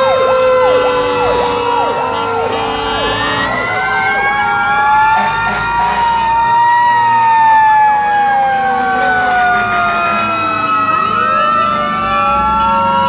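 Sirens of several passing fire engines sounding at once and overlapping. A fast, rapidly repeating yelp comes in the first couple of seconds, and long, slowly rising and falling wails run under and after it.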